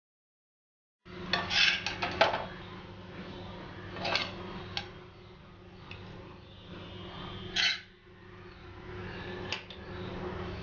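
Metal spatula scraping and clinking against a kadhai and a steel plate as cooked sabudana khichdi is scooped from the pan onto the plate. It starts about a second in with a quick cluster of scrapes, followed by a few single clinks spread out over the rest.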